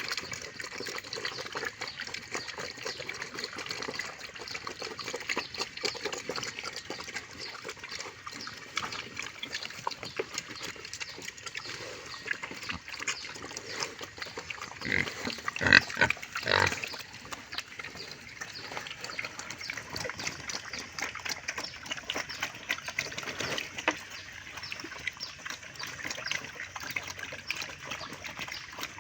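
Wild pigs feeding, with dense, irregular crunching and chewing clicks throughout. About halfway through comes a brief, louder outburst from the pigs.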